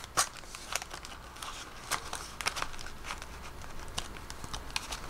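Paper banknotes and cash envelopes being handled, rustling and crinkling in irregular bursts with small sharp clicks.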